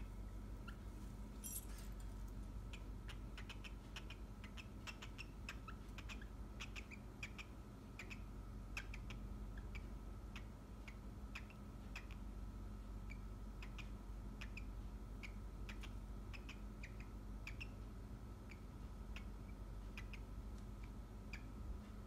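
A cockatiel making many faint, short chirps at an irregular pace, which the owner takes for a female's mating call, over a steady low hum.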